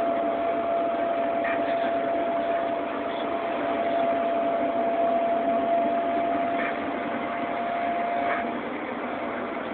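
A steady motor drone with a constant whine over it, heard from inside a clear plastic ball. The whine stops about eight and a half seconds in while the drone carries on.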